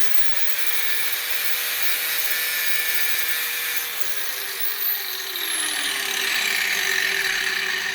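Electric grinder running with its grinding wheel against a thick wire, scratching the metal to test whether it is copper or aluminum; the wire turns out to be aluminum. A loud, steady whine with grinding hiss over it; the pitch slides down about halfway through.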